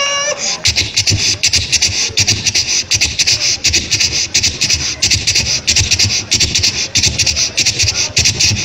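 A man imitating a moving train with his voice through a microphone: fast, rhythmic chugging puffs like a train under way. A whistle-like horn call ends just at the start and begins again at the very end.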